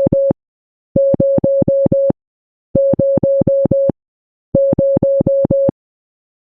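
Morse code sent as a single steady electronic beep tone, keyed on and off in runs of about five short, equal beeps with a gap of a little over half a second between runs. Each beep starts and stops with a slight click, and the tone stops about two-thirds of the way through.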